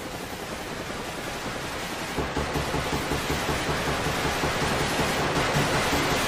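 A steady rushing noise, like static or heavy rain, slowly getting louder.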